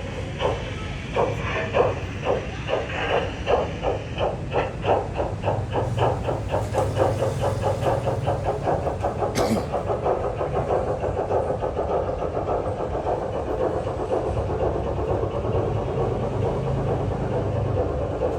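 Train passing close by, its wheels clicking over the rail joints in a regular rhythm that quickens, over a low steady rumble. There is one sharper click about nine seconds in.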